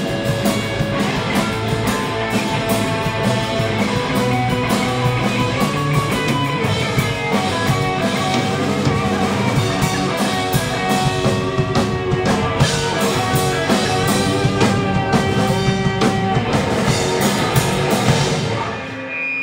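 Live rock band playing an instrumental passage: electric guitars, electric bass and a Gretsch drum kit with dense cymbal hits. Near the end the band stops and the sound falls away, leaving a note ringing.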